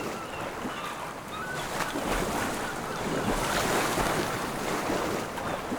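Ocean waves and wind at sea, a steady rushing that swells slightly three to four seconds in.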